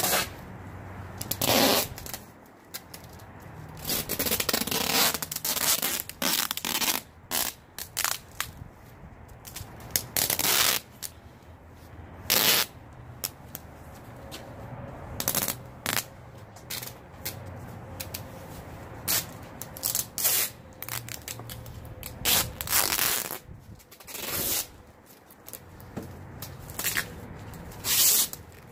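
Irregular rustling, scraping and knocking of items being handled and moved about, in short sharp bursts every second or so.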